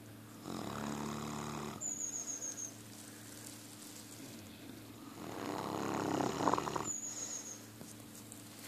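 Neapolitan Mastiff puppy snoring in its sleep: two long snoring breaths about four seconds apart, the second louder, each ending in a fluttering rattle.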